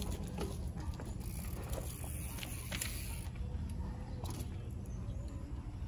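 Mountain bike being ridden: a steady low rumble of wind and tyres with scattered rattles and clicks from the bike.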